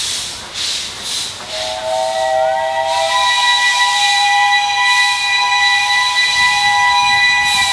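Steam locomotive venting steam in hissing bursts, then about a second and a half in its whistle starts and holds one long blast of several tones sounding together, the lowest tone dropping out partway through.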